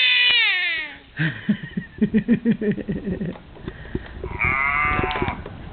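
A toddler's long, high-pitched imitation of a cow's "moo", falling in pitch as it ends about a second in. Low murmurs follow, then a shorter high call that also falls in pitch.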